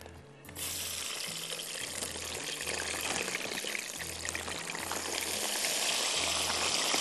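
Frozen straight-cut fries hitting hot oil in a wok: a sudden dense frying sizzle with small crackles starts about half a second in and holds steady.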